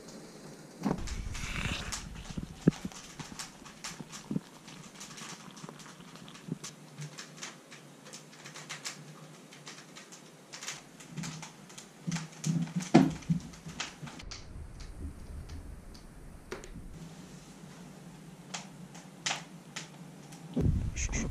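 A young Australian Shepherd whining and whimpering in short bursts, mixed with scattered clicks and knocks.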